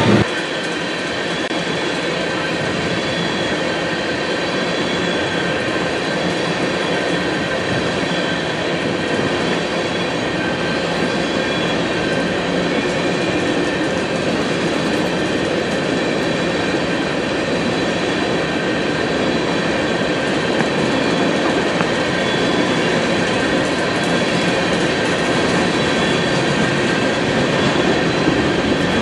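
A string of railroad tank cars rolling past: a steady rumble of steel wheels on rail with a continuous high-pitched metallic squeal and some clickety-clack over the rail joints.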